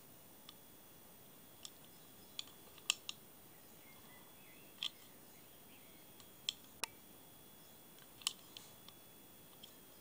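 Irregular light clicks and taps from an Allcock Aerialite Bakelite centrepin reel being turned over and handled in the hands. There are about a dozen in all, with the sharpest about three seconds in.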